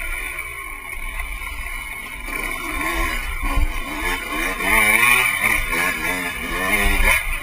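Dirt bike engine revving up and down repeatedly as it rides a wooded trail, with the pitch rising and falling with the throttle and the engine louder in the second half.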